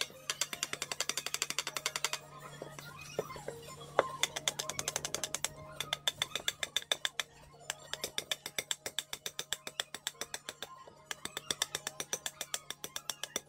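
Heavy cleaver-style knife chopping into the inside of a wooden bowl blank, quick sharp strikes about six a second in runs with short pauses, hollowing out the bowl.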